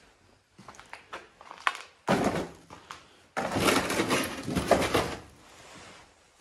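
Cardboard boxes and packaging being shifted and rummaged through by hand: a few light knocks, then two loud stretches of crinkling, crackling and scraping, the second one longer.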